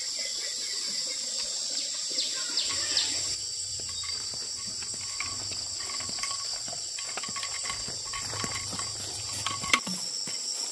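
Insects chirring steadily in a high, shrill drone, with scattered light clicks and rustles. A few short falling whistles come about two to three seconds in, and one sharp click comes near the end.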